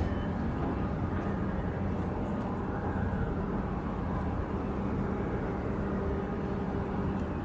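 Steady low rumble of ships' engines with a constant droning hum.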